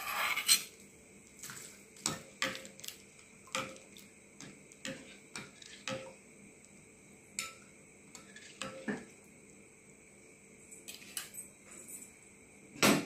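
A steel spoon clinking and scraping against a tempering pan and a glass bowl as fried tempering is tipped into curd and stirred in. There are separate taps, a few close together at first and then one every second or so, and a louder clatter near the end.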